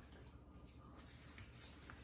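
Near silence: room tone with a low steady hum and a couple of faint clicks.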